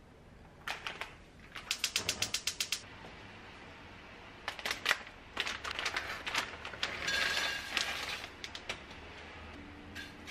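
Dry kitchen handling sounds of dried shrimp being tossed and stirred in a dry cast iron wok with a wooden spatula: irregular sharp clicks and a brief crackling hiss. About two seconds in there is a quick even run of about a dozen clicks.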